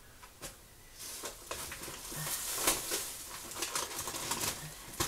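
Packaging rustling and crinkling as produce is handled and pulled from a delivery box, starting about a second in, with small knocks.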